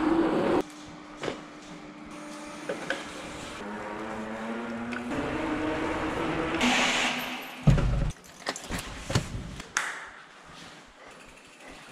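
Electric mountain bike rolling across the concrete floor of an underground parking garage: wind noise on the microphone cuts off at the start, then a steady motor whine that shifts in pitch. A heavy thump about eight seconds in, followed by a few clicks and rattles.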